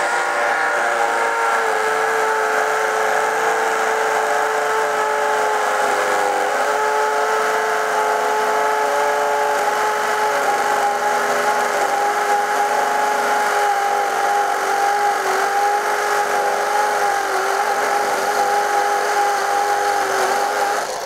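Craftsman V20 brushless 1/2-inch hammer drill running in hammer mode, boring a half-inch masonry bit into a masonry block. The steady motor-and-hammer drone goes on without a break, dipping a little in pitch in the first couple of seconds, and stops just before the end.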